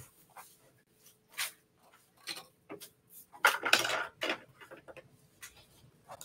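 Light clinks and taps of small nail-art tools and gel pots being handled on a table: a few scattered taps, then a quick cluster of them about three and a half seconds in.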